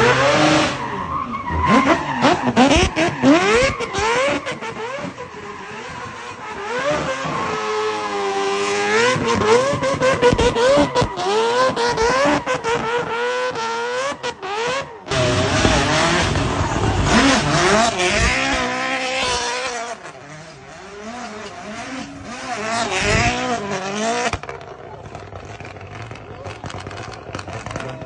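Drift cars' engines revving hard up and down over and over while they slide and spin donuts, with tyre squeal and skidding. The sound breaks off abruptly about halfway through and picks up again.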